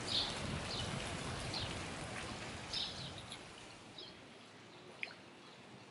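Steady hiss of rain and splashing fountain water that fades after about three seconds, with short high bird chirps scattered on top.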